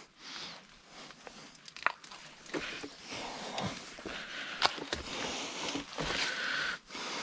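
Crunching and rustling of mangrove twigs and leaves, with a few sharp snaps, as a collapsible crab pot's rope is untangled from the roots and the pot is pulled free.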